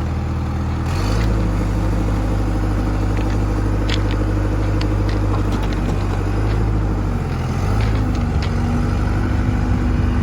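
New Holland LB75B backhoe loader's diesel engine running, its note stepping up about a second in as the hydraulics are worked, with a few light clanks. Near the end the engine note shifts again and a steady whine comes in.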